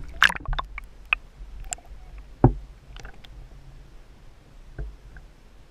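A camera held underwater picks up scattered sharp clicks and knocks, with one heavier thump about two and a half seconds in, over a low steady rumble.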